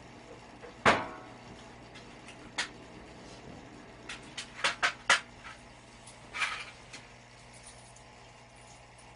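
Handling knocks and clicks: one sharp knock with a short ring, then a few lighter clicks in quick succession and a brief scrape, over a steady low hum.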